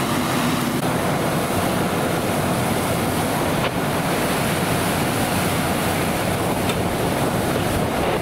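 Fire hose streams spraying water onto a burning car, a steady rushing hiss of water and steam with a low rumble underneath.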